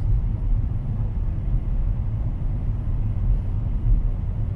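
Steady low rumble of a Boeing 777-300ER in flight, heard inside the passenger cabin.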